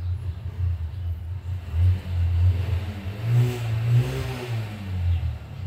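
A motor vehicle engine running nearby with a steady low hum; about halfway through its pitch rises and then falls again, as it revs or drives past.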